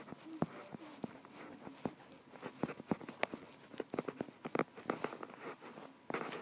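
Stylus tapping and scratching on a tablet screen while a word is handwritten: a scatter of light, irregular clicks and ticks.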